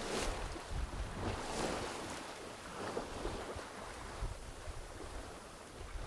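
Bow wave of a COCO 6.50 sailboat under sail, water rushing and splashing along the hull in surges, with wind buffeting the microphone.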